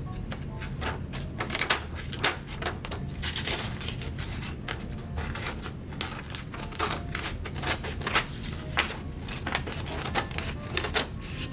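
Scissors snipping through paper in quick, irregular cuts, several snips a second.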